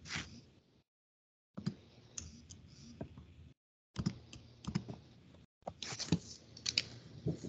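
Computer keyboard and mouse clicks, scattered and irregular, heard faintly through a video-call microphone; the sound cuts out to dead silence between clusters of clicks.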